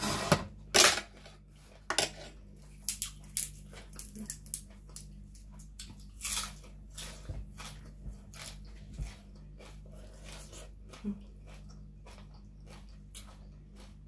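Close-miked eating of a pounded papaya salad with rice noodles and raw vegetables: irregular crunching and wet chewing clicks, loudest in the first second and thinning out in the last few seconds.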